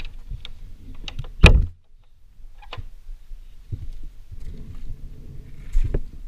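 Knocks and scrapes against a wooden garden fence or gate as someone pushes through it, with one loud thump about a second and a half in and a low rumble of movement on the camera.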